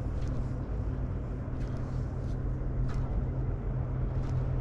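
Boat motor running steadily underneath, a low even hum.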